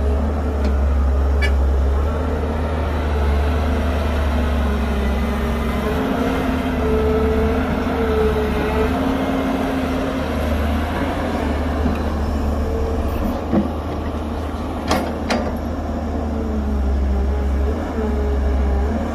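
A CAT excavator's diesel engine and hydraulics working under varying load as it loads a dump truck, the pitch wavering up and down. A few sharp knocks come about three quarters of the way through.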